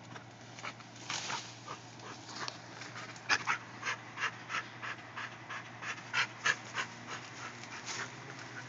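Pit bull-type dog panting hard from exertion, in quick rhythmic breaths about three a second that grow stronger midway.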